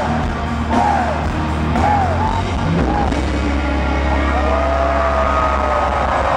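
Heavy metal band playing live at full volume, heard from within the crowd: a heavy bass and drum bed under arching melodic phrases, then a long held note from about four seconds in.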